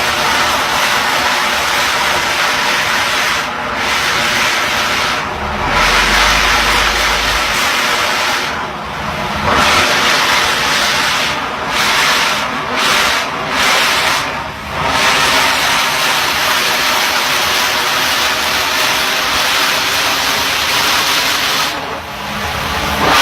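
Drilling-rig machinery running loudly: a continuous hissing din over engine drone, dropping away briefly several times, with a low rumble about six seconds in.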